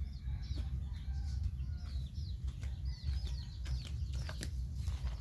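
Small birds chirping over and over in short, high, falling notes, over a steady low rumble.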